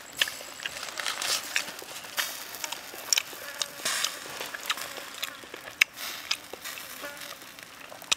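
Whole fish and vegetable skewers grilling on a wire rack over a fire: a steady sizzling hiss with irregular sharp crackles and pops.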